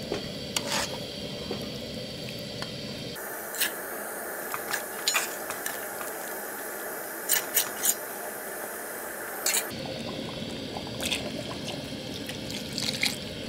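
A pot of soup ingredients being stirred: steady wet sloshing with scattered sharp clinks of the spoon against the pot. The tone of the sound changes abruptly about three seconds in and again near ten seconds.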